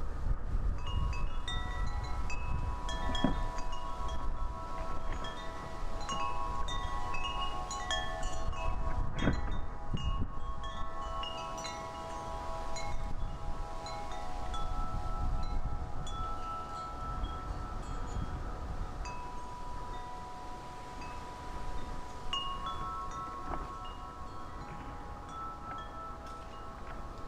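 Wind chimes ringing as the wind swings them, struck again and again throughout, several long-ringing notes overlapping. Wind rumbles on the microphone underneath.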